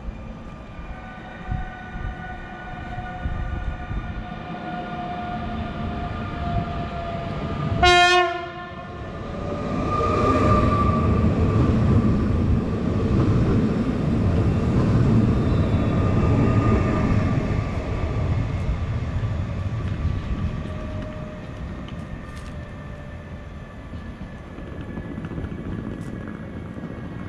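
Koleje Śląskie electric multiple unit approaching with a steady whine, giving one short horn blast about eight seconds in, then rumbling past close by; the rumble dies down in the last third.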